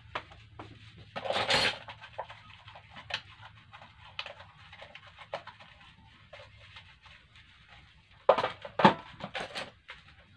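Dishes being washed by hand at a kitchen sink: scattered clinks of plates, a glass and cutlery, with a louder burst of clatter about a second in and a cluster of loud knocks near the end.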